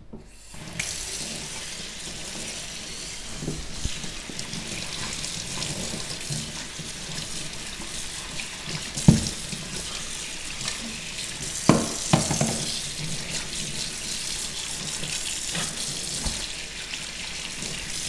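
Kitchen tap running, its stream splashing over a dishwasher filter rinsed under it in a stainless-steel sink; the water comes on about a second in. Two sharp knocks, the loudest sounds, come about halfway through and a little later.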